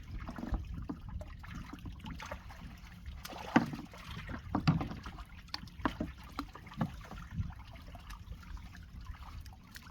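Sea water lapping and splashing with steady wind noise, broken by scattered short knocks and clicks, the sharpest about three and a half seconds in.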